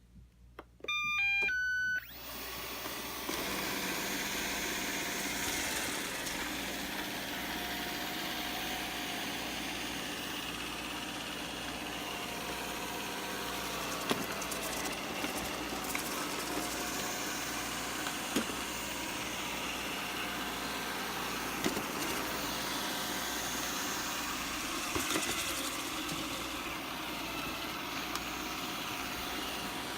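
Eufy RoboVac 11 robot vacuum starting up with a short run of beeps at different pitches. It then runs steadily, its suction fan and brush motors whirring, with a few sharp knocks as it bumps into things.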